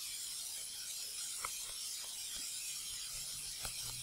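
Faint stylus ticks and scratches on a tablet screen during handwriting: a few light, irregular ticks over a steady hiss.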